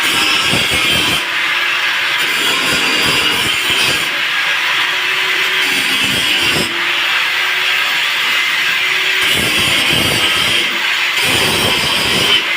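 Angle grinder grinding steel on a welded gate: a loud, steady, harsh hiss that keeps going with small dips in level, trimming off excess metal.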